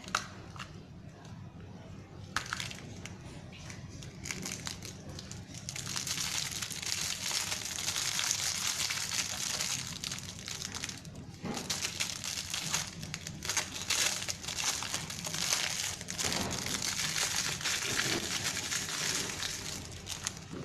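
Plastic wrapping crinkling and crackling as it is handled and pulled open, in a long busy stretch with a brief pause a little past halfway.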